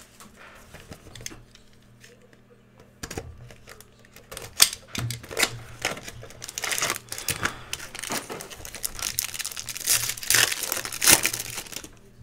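A trading-card hobby box being opened and emptied by hand: crinkling and tearing of its wrapper and packaging, with bursts of sharp crackles and paper-and-card rustling. The first few seconds are fairly quiet before the handling gets going.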